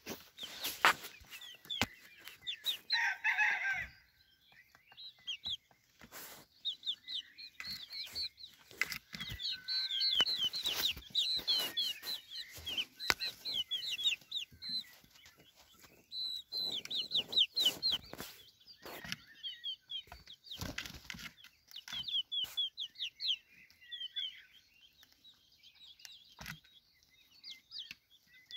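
Young chickens peeping: runs of quick, high, whistling chirps that keep breaking off and starting again, with a rougher, fuller call about three seconds in. Scattered sharp knocks and rustles sound between them.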